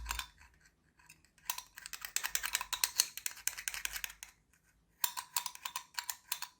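A small tool clicking and scraping rapidly against the head of a small 9-LED torch while the LED array is worked loose. It comes in two spells, the first starting about a second and a half in and the second about five seconds in.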